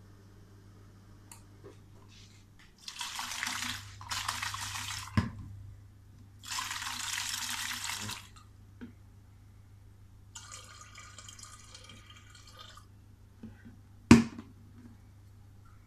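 Lukewarm water poured from a plastic bottle into a plastic 5-litre jug in three splashing pours of a second or so each, then a fainter liquid stretch, with a sharp knock near the end.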